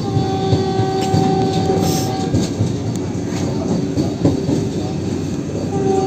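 Vande Bharat Express electric train running on the rails: a steady rumble, with a sustained steady tone for about the first two seconds that comes back near the end, and one sharp knock about four seconds in.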